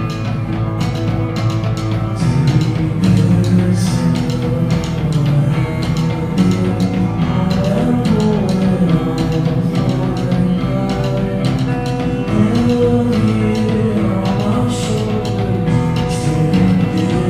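Live two-piece rock band playing: a guitar and a drum kit without a bass drum, busy hits over sustained guitar notes, with a man singing from about two seconds in.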